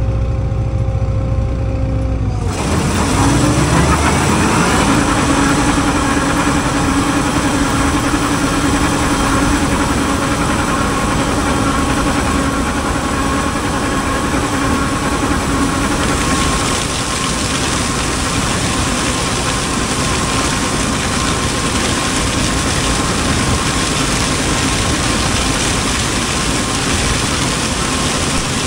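Combine harvester running while cutting corn: a low rumble, then after about two seconds dense, steady engine and threshing noise, with a tone that rises in pitch a few seconds in and then holds steady.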